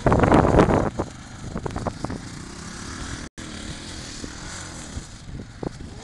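Quad bike (ATV) engine running as it rides over sand, loudest in the first second. The sound drops out for an instant about three seconds in.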